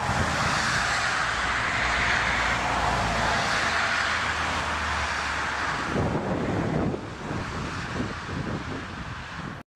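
Airliner jet engines running with heavy wind noise on the microphone. About seven seconds in the engine noise eases and gusty wind buffeting takes over, then the sound cuts off abruptly.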